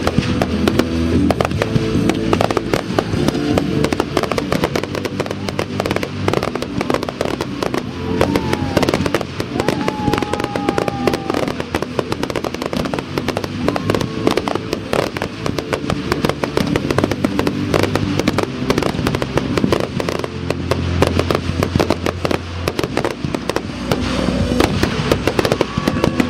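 Fireworks display going off in a dense barrage: many bangs and crackles of bursting aerial shells, one on top of another, over loud music from the show's soundtrack.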